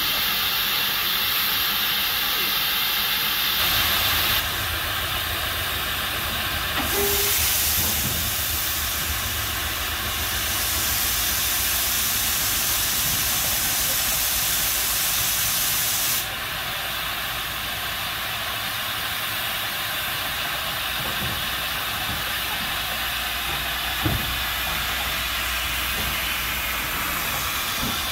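Steady hiss of steam from a Robert Stephenson & Hawthorns 0-4-0 saddle tank steam locomotive standing in steam, its safety valves blowing off. The hiss shifts in strength a few times, with a single short knock near the end.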